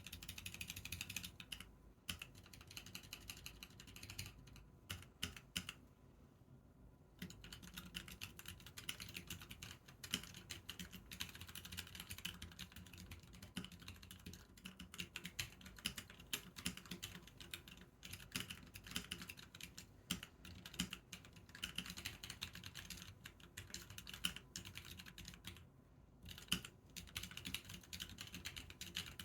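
Continuous typing on a Corne Mini split mechanical keyboard with Durock White Lotus linear switches: rapid runs of key clicks, with brief pauses about two seconds in, around five to seven seconds, and near the end.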